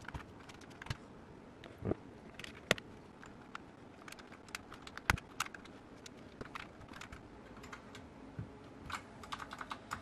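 Round plastic keycaps being pushed onto the red-stem switches of a mechanical keyboard: scattered, irregular sharp clicks and clacks, coming thicker near the end.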